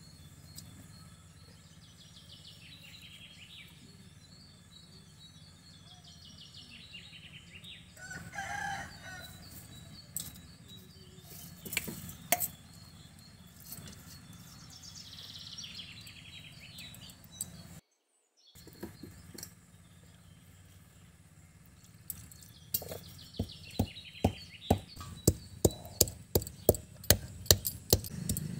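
Stone roller knocking on a flat grinding stone, crushing mustard seeds and dried chillies with sharp, regular knocks about two to three a second that start about three quarters of the way through. Before that, birds chirp and a chicken calls.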